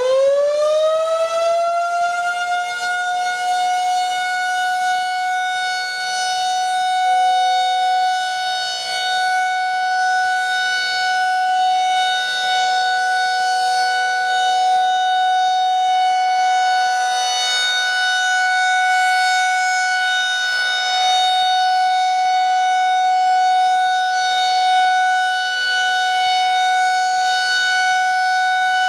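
Federal Signal 2001-SRNB battery-powered warning siren sounding its test: it finishes winding up in the first couple of seconds, then holds one loud, steady wailing tone.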